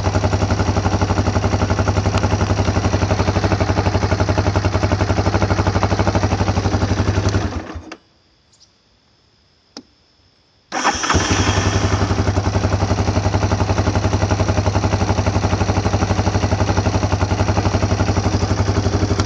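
Yamaha Warrior 350 single-cylinder four-stroke ATV engine idling steadily. It is shut off at about the eight-second mark, and after a short silence and a single click it is restarted on its rebuilt electric starter. It catches almost at once and idles evenly again until it stops near the end.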